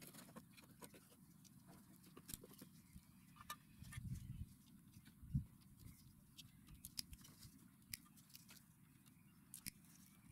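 Near silence with faint scattered clicks and a few soft low knocks.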